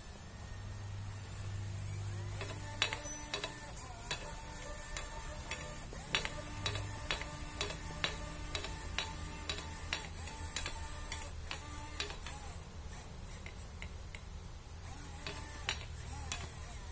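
A small hobby servo working a model kayak's rowing mechanism, whirring and clicking at about two strokes a second.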